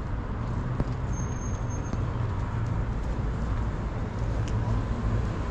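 City street traffic noise with a motor vehicle's engine running as a steady low hum.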